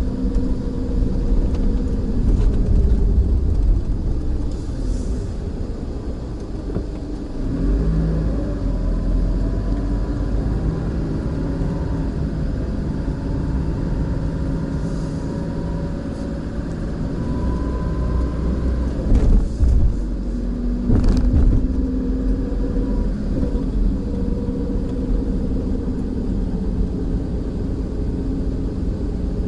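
Car engine and tyres heard from inside the car as it drives slowly, the engine note rising and falling with speed. A few sharp knocks come about two-thirds of the way through.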